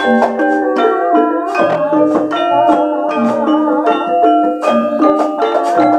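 Javanese gamelan ensemble playing: bronze metallophones and gong-chimes struck with mallets in a dense, steady run of ringing notes that overlap and sustain.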